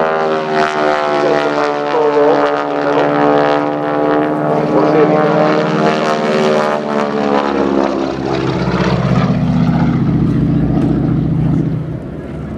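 North American T-6 Texan's radial engine and propeller running at power in aerobatic flight, a steady drone that sinks slightly in pitch, then changes to a lower tone about eight seconds in and grows a little quieter near the end.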